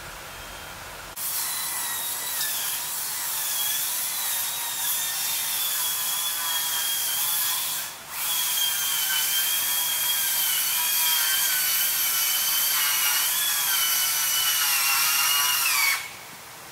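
A high-pitched mechanical whine, several tones wavering slightly in pitch over a steady hiss. It breaks off briefly midway, then resumes, sags in pitch near the end and cuts off suddenly.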